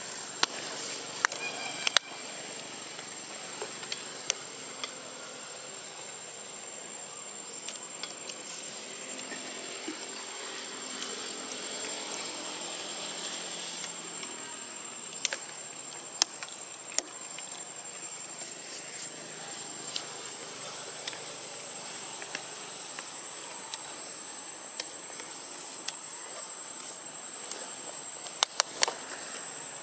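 A steady high-pitched insect drone over a faint hiss, broken by scattered sharp clicks, with a quick cluster of them near the end.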